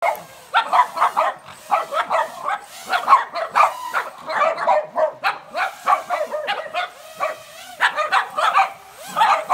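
Small dogs barking in quick, almost unbroken runs of short, sharp barks.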